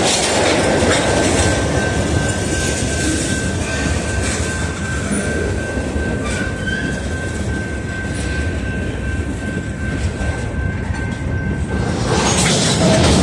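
Freight train of tank cars, boxcars and covered hoppers rolling past, its wheels clacking over the rail joints. A thin, steady high-pitched squeal sounds over the rumble and stops near the end.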